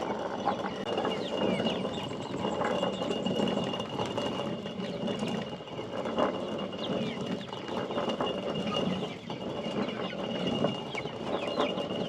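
Chickens clucking with many short, overlapping calls, over a steady high-pitched tone.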